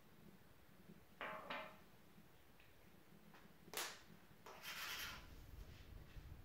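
Faint handling of a small plastic canister holding baking soda and water: two brief scrapes a little over a second in, a sharp click about four seconds in as the lid is snapped on, then a short rustle.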